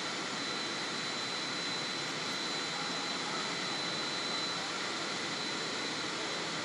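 Steady rushing background noise with a thin, steady high whine running through it.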